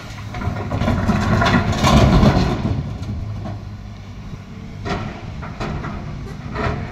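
Volvo EC210 excavator's diesel engine running under load, with a loud rumbling crash of stones tipped from the bucket into the steel dump-truck bed about a second in. Near the end come sharp clacks of rock as the bucket digs into the stone pile.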